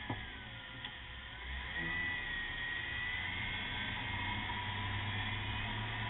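2001 Jeep Grand Cherokee on the move, heard as steady vehicle running noise with a low hum and a faint wavering whine, and two brief clicks in the first second.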